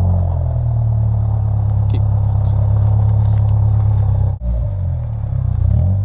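A Honda Civic's engine running steadily, with a brief cut-out about four and a half seconds in.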